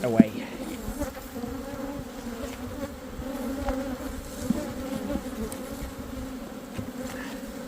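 Honeybees buzzing around an open hive in a steady, even hum.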